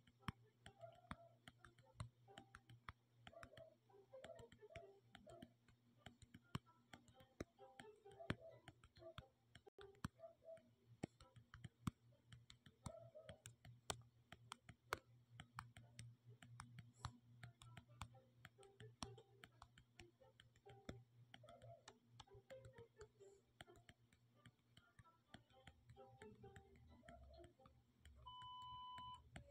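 Faint, irregular clicking of fingertip taps on a phone touchscreen, several a second. A short electronic beep comes near the end.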